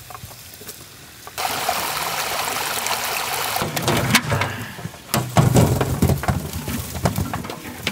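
Water running and dripping out of a large perforated aluminium pot of wet dragon fruit, then the fruit tipped out onto a big metal tray, thudding and clattering against the metal, the heaviest thuds a little past the middle.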